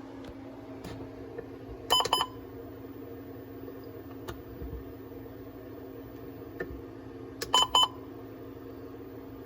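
Short electronic button beeps from a weather radio receiver as its stored alert messages are scrolled through: two quick beeps about two seconds in and three more near the end, with a few faint clicks between, over a steady hum.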